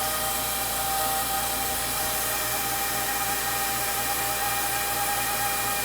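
Car wash machinery of the Magelis system giving off a steady whine with a constant high tone over an even hiss. The owner finds it a strange noise, though others have told him it sounds fine.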